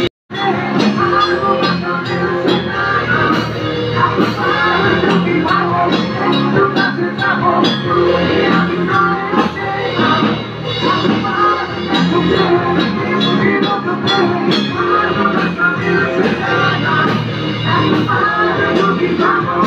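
Rock music: electric guitar over a drum kit, playing steadily, with a brief dropout to silence just after the start.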